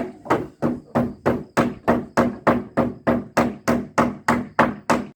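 Hammer blows on wood in a fast, even run of about three strikes a second, each with a short ring; they stop near the end.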